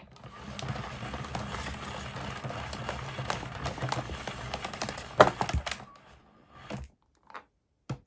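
Mains cable of a 1993 Numatic Henry HVR200 vacuum cleaner being wound in by turning the rewind handle on top: a continuous rattling clatter of rapid clicks as the flex drags in, with a few louder knocks about five seconds in, then a few separate clicks near the end.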